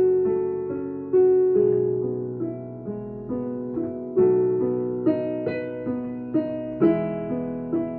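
Piano playing a tune, single notes and chords struck about twice a second, each ringing and fading.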